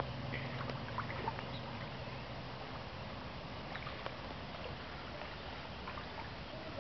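Small tipper truck driving away through floodwater: a steady wash of water noise, with the truck's low engine hum fading about a second in. A few short high chirps sound over it.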